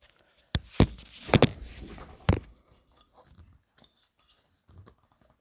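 About five sharp knocks and clicks in the first two and a half seconds, with rustling between them, from handling a Snapple bottle while struggling to twist off its stuck cap; faint small handling noises follow.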